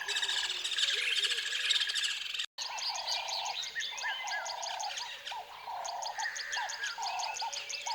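Birds chirping and calling, many short calls overlapping. The sound cuts out for a moment about two and a half seconds in, then the chirping carries on.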